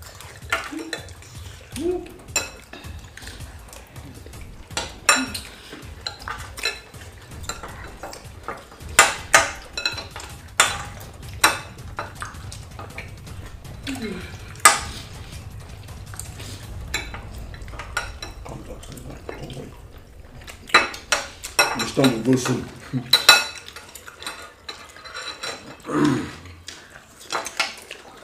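Spoons and forks clinking, knocking and scraping against bowls and plates as several people eat quickly, in an irregular run of sharp clicks, with a few short murmurs between them.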